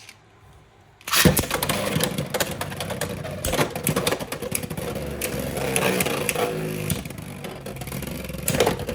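Beyblade X spinning tops launched into a plastic stadium about a second in, then whirring across the floor with a steady grinding and repeated sharp clacks as they hit each other and the walls.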